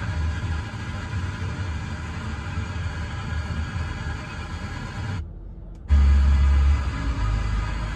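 Audio from a car's FM radio tuned to 88.1 MHz, heard through the car speakers. A little after five seconds in the sound cuts out for about half a second as the tuner steps to 88.3 MHz. It comes back with a strong low rumble for about a second.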